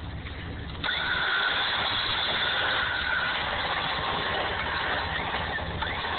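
A Jeep's engine idling with a low, even hum. About a second in, a louder steady rushing noise covers it.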